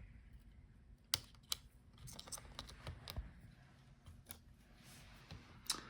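Scattered faint clicks and light taps of small laptop parts being handled, in keeping with the antenna wire connectors being unclipped from the laptop's Wi-Fi card.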